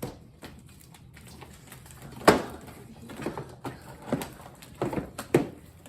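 Sticky homemade slime being handled and squeezed: irregular wet clicks and squelches, the loudest about two seconds in, with several more in the second half.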